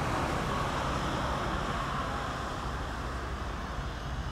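Bombardier Challenger 605 business jet's twin turbofan engines on landing: a steady jet hiss and rumble, slowly fading.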